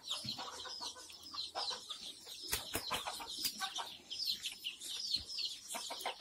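A flock of chickens, Kadaknath among them, clucking and giving many high, short falling peeps that overlap throughout. A few sharp taps come in the middle and near the end.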